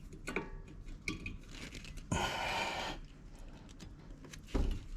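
Metal clicks and a scrape of about a second as a brake pad is worked into the caliper bracket's clips, with a low thump near the end.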